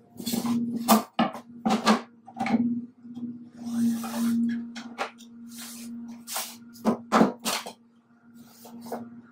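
Workbench handling sounds: a metal square and small tools being picked up, set down and shifted on a plywood sheet, giving a string of sharp knocks and clatters. About four seconds in, a pencil scratches along the square's edge as the wood is marked. A steady low hum runs underneath.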